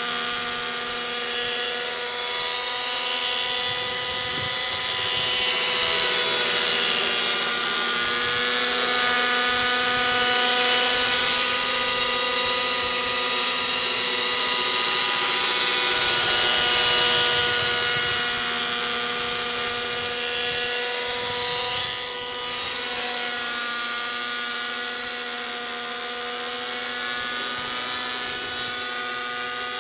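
Align T-Rex 600 nitro helicopter in forward flight: its OS 55 two-stroke glow engine and spinning rotors give a steady high-pitched whine. The pitch bends slightly up and down, and the sound grows louder around the middle as the helicopter passes nearer, then eases off.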